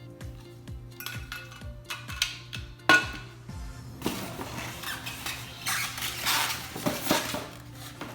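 Coffee-machine parts and packaging being handled during unboxing: a sharp clink of a hard part being set down about three seconds in, then a stretch of packaging rustling. Background music plays underneath.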